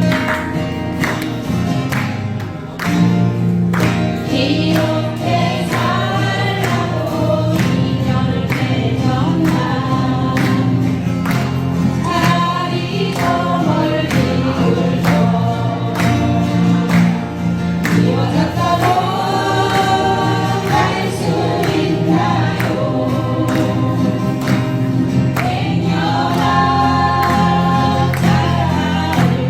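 Acoustic guitars strummed in a steady rhythm while a group of voices sings a song together, the singing coming in about four seconds in.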